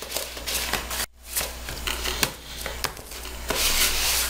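A spoon stirring and scraping thick, firm bolinho de chuva batter in a plastic bowl, with a run of short scrapes and knocks against the bowl. The sound breaks off briefly about a second in.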